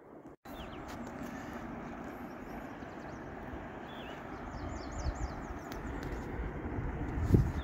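Steady rushing outdoor noise of moving river water and wind. Low wind thumps buffet the microphone, growing toward the end, and songbirds chirp faintly now and then.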